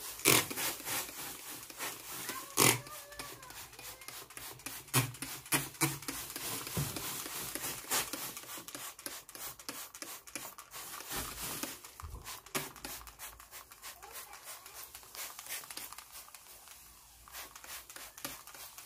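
Trigger spray bottle of Mr Muscle kitchen degreaser squirted again and again, each pull a short hiss with a click, with handling sounds from the hand and bottle in between.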